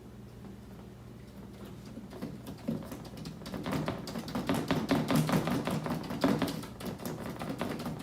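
A paint-loaded bristle brush tapped rapidly against paper over cardboard, dabbing in tree foliage. The tapping starts about two and a half seconds in and grows louder, over a faint steady hum.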